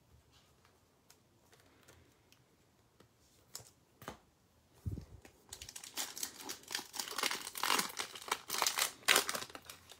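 A foil Prizm basketball card pack being torn open and crinkled by hand. The wrapper crackles steadily through the second half, after a few light ticks as it is picked up.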